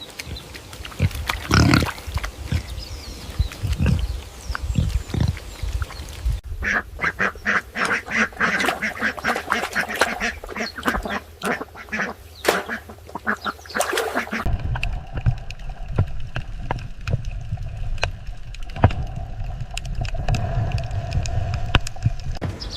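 Ducks quacking, in animal recordings that change abruptly about six seconds in and again past the halfway point.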